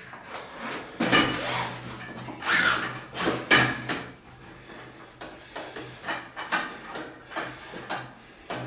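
Metal frame and end bar of a camp stretcher being handled and fitted to tension the canvas bed: a run of uneven clicks, knocks and rattles with scraping between them, the sharpest about a second in and again around three and a half seconds.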